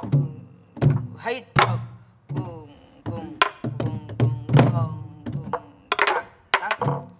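Several sori-buk, Korean barrel drums used to accompany pansori, played together in an accompaniment rhythm: deep thumps on the drumheads mixed with sharp cracks of the stick on the wooden shell, in an uneven, lilting pattern of strokes.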